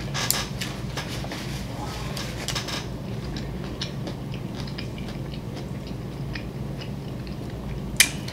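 Close-miked chewing of a sushi roll: a run of soft, wet mouth clicks over the first three seconds, then sparser ones, with one sharp click near the end.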